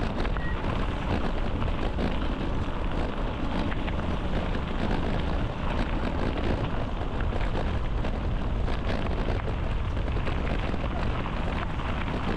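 Steady wind noise on the microphone of a moving bicycle, heavy in the low end, with faint ticks and knocks from the wheels over the trail surface.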